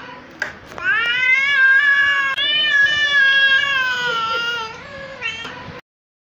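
Angry cat yowling in a fight standoff: one long drawn-out yowl that rises and wavers in pitch, then a shorter call near the end, cut off suddenly.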